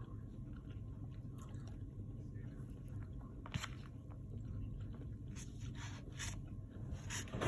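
A person chewing a mouthful of soft noodles and vegetables close to the microphone, with scattered small wet mouth clicks.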